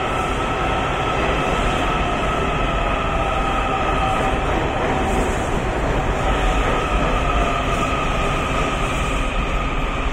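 Washington Metro 7000-series subway train moving along an underground platform: a steady high whine from its propulsion, in several tones, over the low rumble of the wheels on the rails.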